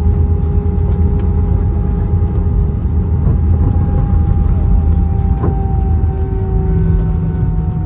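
Airbus A320 landing rollout heard from the cabin: a loud low rumble of the engines and wheels on the runway, with a steady engine whine that slowly drops in pitch in the second half as the jet slows. A couple of light knocks come through around the middle.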